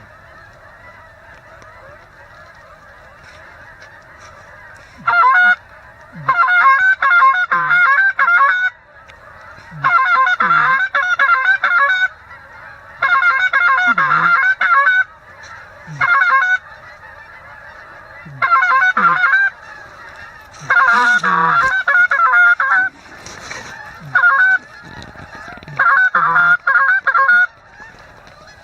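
Hand-blown goose call sounded in about nine loud bursts of rapid honks and clucks, calling to passing geese. Under it runs a steady, fainter chorus of a flock of geese honking.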